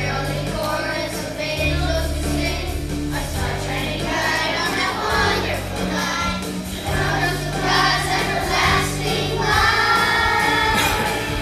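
Children's choir singing together over an instrumental accompaniment with held bass notes.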